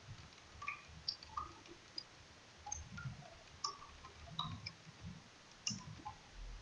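Faint, irregular clicks of a computer keyboard as a line of text is typed, about a dozen keystrokes spread unevenly over several seconds.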